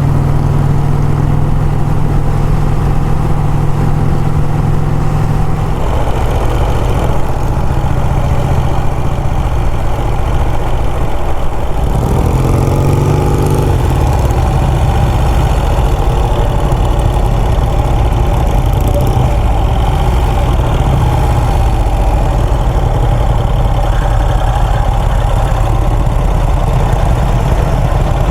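Vintage motorcycle engine running steadily on the road, with the engine note shifting about six seconds in and climbing briefly about twelve seconds in.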